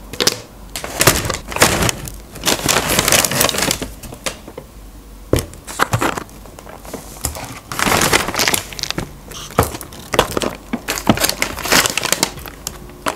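Brown paper takeaway bags rustling and crinkling in bursts as cups and food boxes are lifted out, with sharp knocks of cardboard and plastic containers set down on a table.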